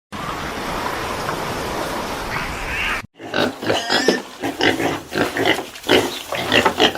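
Animal sounds: an even, hissing noise for about three seconds, then, after a sudden break, a quick, irregular run of short squealing and grunting calls.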